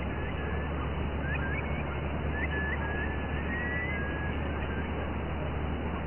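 Steady outdoor background noise with a run of short, faint whistled bird calls, some hooked upward, from about a second in to about four and a half seconds in.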